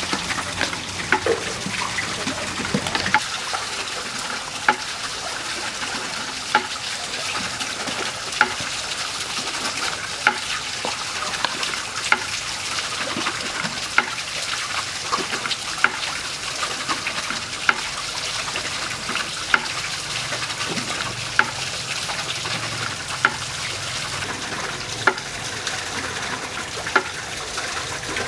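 Spatula stirring fried rice in a hot wok, with sizzling, for the first few seconds. Then a steady hiss with a sharp click about every two seconds.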